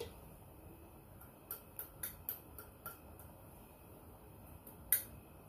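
Light clicks of a spoon tapping a small jar of food colouring: five or so within about a second and a half, then one sharper click near the end.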